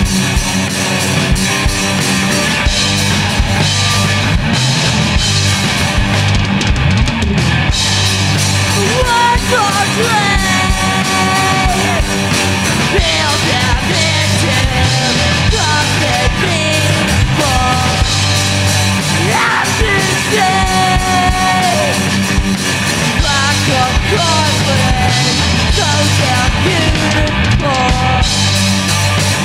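A rock band playing live: electric guitar, bass guitar and a Tama drum kit, with lead vocals coming in about eight seconds in and carrying on.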